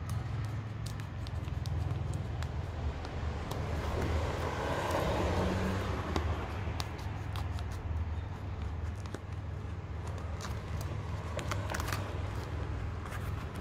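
Clear plastic blister packaging crackling and clicking as it is handled and cut open with scissors, in many small sharp snips and crinkles, over a steady low rumble.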